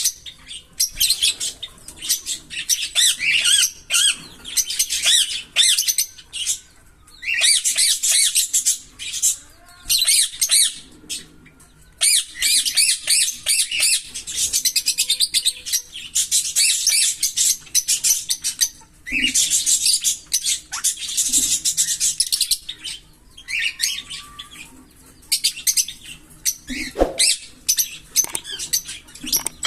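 Green Fischer's lovebirds chirping in rapid, high-pitched chattering runs, the 'giggle' song of the species. Several runs last two to four seconds, with short pauses between.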